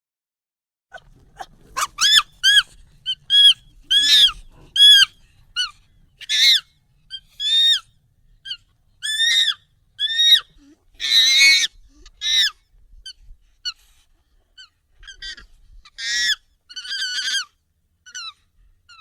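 Monkey calls sped up and pitched up: an irregular string of short, high, arching squeaks and chirps, with a longer, harsher call in the middle.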